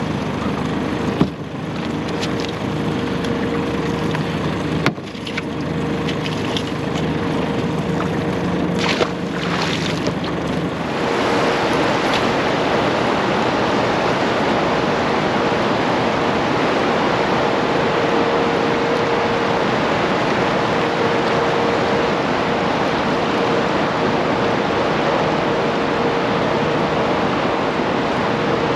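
Steady rush of turbulent water in a dam's tailwater, with a constant hum underneath. There are a couple of light knocks in the first few seconds, and about eleven seconds in the rush becomes louder and fuller.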